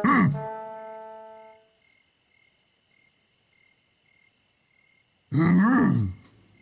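Cartoon soundtrack: a short vocal exclamation over ringing tones at the start that fade out within about two seconds, then a faint night ambience of crickets chirping in a steady, regular pulse, then a brief wordless vocal sound about five seconds in.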